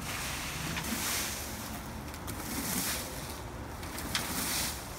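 Leaf rakes scraping and rustling through dry leaves and grass in repeated strokes, each stroke a surge of hiss.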